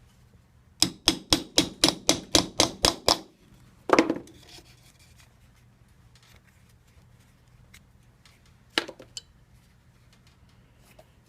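Hammer blows: a quick run of about ten taps, roughly four a second, then a single heavier blow about a second later and one more strike near the end.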